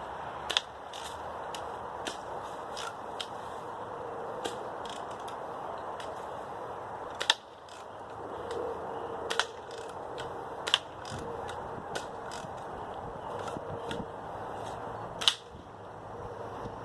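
BB gun firing: four sharp cracks spread several seconds apart, with a weaker one between, and small mechanical clicks in the gaps.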